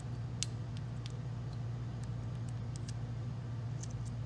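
A steady low hum, with a handful of faint, light metal clicks scattered through it as the tip of a rifle cartridge works against an AR-15 bolt carrier to push out the firing pin retaining pin.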